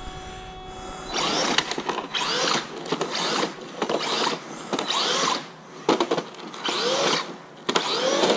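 The RC monster truck's brushless electric motor whines up and falls back about once a second, in short throttle bursts.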